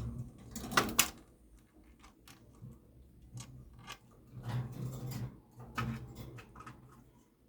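Indian ringneck parrot eating mango: irregular clicks and knocks of its beak working the fruit, with the two sharpest clicks about a second in and another flurry around the middle.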